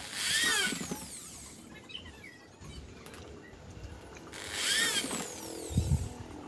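Electric drill boring through the plastic walls of two nested paint buckets in two short bursts, its whine rising and falling with each pull of the trigger. A short knock comes near the end.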